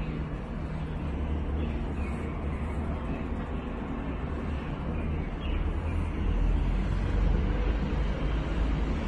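Steady outdoor city background: the hum of distant road traffic, with a low rumble that grows louder a little past halfway.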